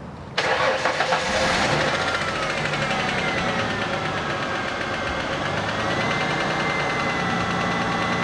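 Ford Mustang engine catching suddenly about half a second in and then running steadily, its first run after a fuel pump replacement cured a no-start. A ticking from the top of the motor comes through, which the owner puts down to a dry top end after the car sat for a while.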